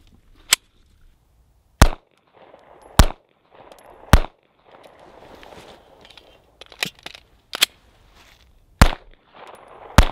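Canik TP9SFL long-slide 9mm pistol fired in a slow string of about eight single shots, sharp cracks roughly a second apart with a pause of a couple of seconds midway.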